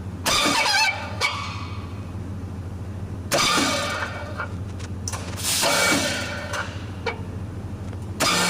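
Motor fan running with a steady low hum, while rasping, buzzing bursts break out from the fan and its cover every two to three seconds, each lasting under a second. This is the abnormal noise coming from the fan and cover.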